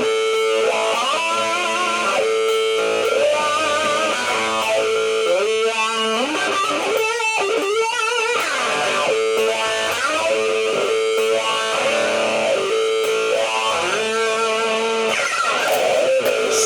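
Music with no singing: a guitar, most likely electric, plays wavering, bent notes over a steady held note.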